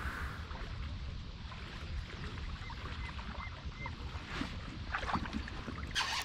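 Waterside ambience: wind rumbling on the microphone and small waves lapping at the bank, with a few faint high chirps midway.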